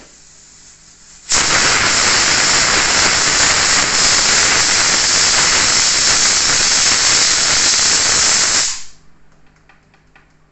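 Pressure cooker whistle: a loud jet of steam hissing out of the weight valve as built-up pressure vents. It starts suddenly about a second in and dies away about seven seconds later.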